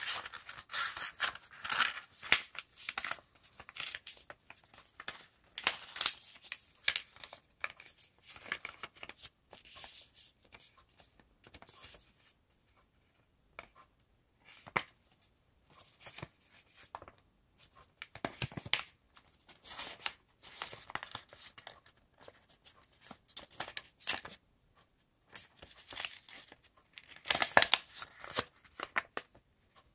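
Origami paper rustling and crinkling in the hands as it is folded and creased, in irregular bursts with short pauses between them; the loudest rustle comes near the end.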